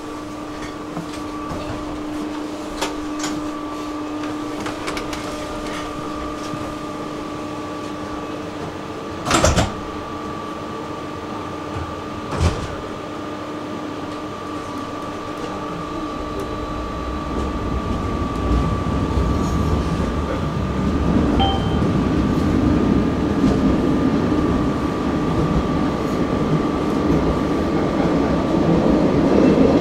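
Tram interior: a steady electrical hum, broken by two sharp knocks about three seconds apart near the middle. Then the tram's low wheel-and-motor rumble builds steadily as it gathers speed.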